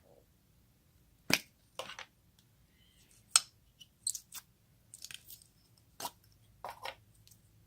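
Slime being squished and pressed by hand, making a series of irregular sharp crackles and squelches, about eight in all.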